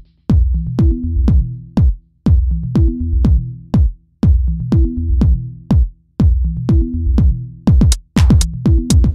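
Background electronic music: a drum-machine beat with a repeating bass line, and fast hi-hat ticks joining near the end.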